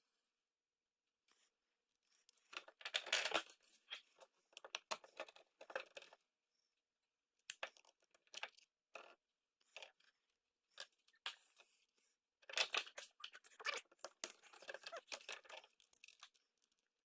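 A plastic hair-curler housing being unscrewed and pried apart by hand: irregular scraping, crackling and clicking in short bursts with silent gaps between them.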